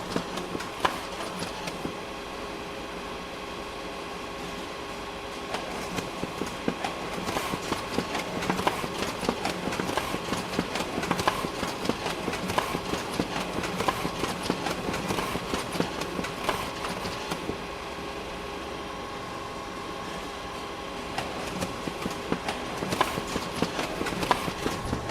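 Photocopier running: a steady hum under rapid, dense mechanical clicking and clatter, which eases into calmer stretches twice before picking up again.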